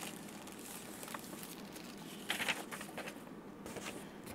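Faint rustling of paper sheets and a clear plastic sleeve being handled, with a brief louder rustle about two and a half seconds in.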